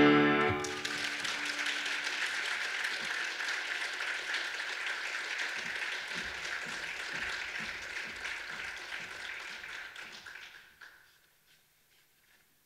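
The last sung note and piano chord die away in the first half second, then an audience applauds, the clapping fading gradually until it stops abruptly about eleven seconds in.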